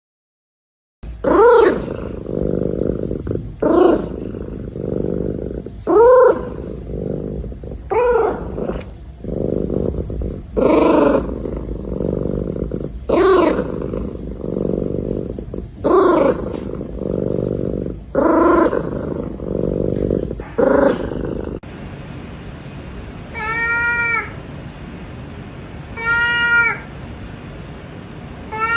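A cat meows over and over in long, rising-and-falling calls, about one every two and a half seconds, over a steady low rumble. About two-thirds of the way through the background changes, and a higher-pitched cat meows three times.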